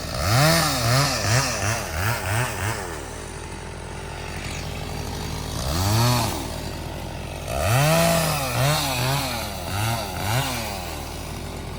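Chainsaw revved in a run of quick throttle bursts, then dropping back to idle. It gets one more burst about six seconds in and another run of bursts near the end.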